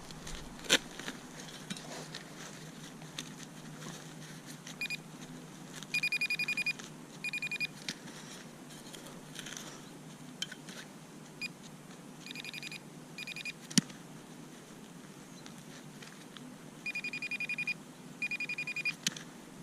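Metal detector giving short bursts of a high, rapidly pulsing tone, several times over, as it sounds off on a buried target. A few sharp clicks fall between them.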